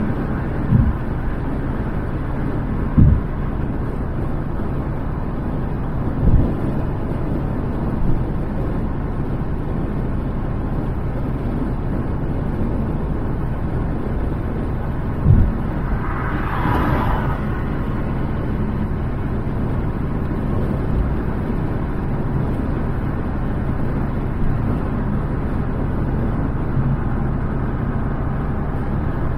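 Steady road and wind noise of a car driving on a freeway, with a few short low thumps and a brief rushing swell about halfway through.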